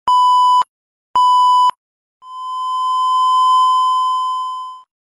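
Electronic beep tones: two short beeps about half a second apart, then, after a pause, one longer tone at the same pitch that swells up and fades away.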